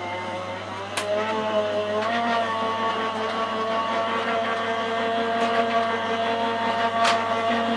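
Gemini electric die-cutting machine's motor running steadily with a whine as its rollers pull a stack of metal cutting plates and a die through. There is a sharp click about a second in and another about seven seconds in.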